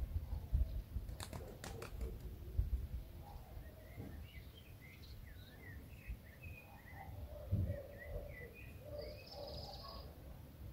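Small birds chirping in quick short notes, busiest from about four seconds in, over a low rumble, with a few sharp clicks about a second in.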